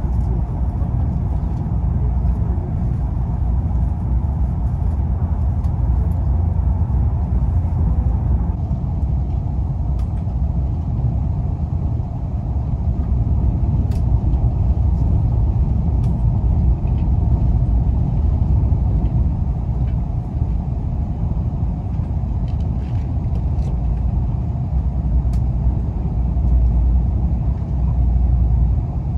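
KORAIL 210000 series ITX-Saemaeul electric multiple unit running: a steady low rumble of wheels and running gear, with a few faint clicks scattered through it.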